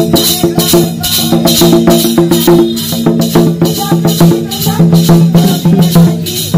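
Tribal folk dance music: a hand drum beaten in a quick, steady beat with a metal rattle jingling on the strokes, and a melody of held notes over it.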